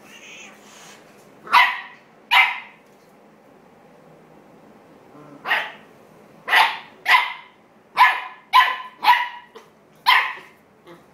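Shetland sheepdog puppy barking in short, sharp yaps at a cat in play: two barks about a second and a half in, then a quicker run of about eight from the middle on.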